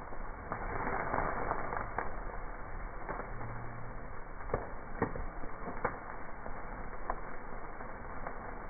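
Open wood fire burning with a steady hiss and scattered sharp crackles and pops, most of them in the middle.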